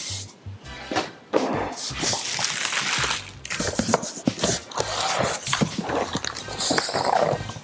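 Cardboard packaging being handled: box flaps and a cardboard packing insert scraping and rustling, with plastic wrap crinkling, in a dense run of irregular rustles and small knocks.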